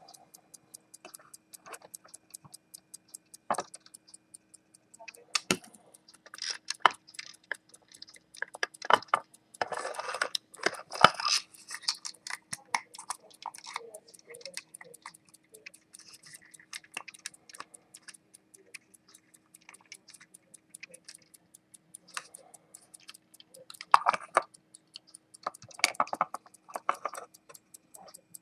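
Longines A-9 military pocket watch ticking with a rapid, even beat. Louder rustling and clicks from hands handling things on the bench come in between about 5 and 12 seconds and again near the end.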